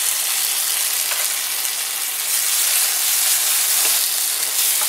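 Oil sizzling steadily in a nonstick wok as finely chopped garlic and ginger fry with freshly added Schezwan sauce, a spatula stirring the mix.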